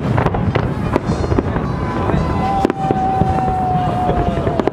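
Fireworks display: rapid, overlapping bangs and crackle of shells bursting overhead. A steady whistling tone runs through the second half for about two seconds.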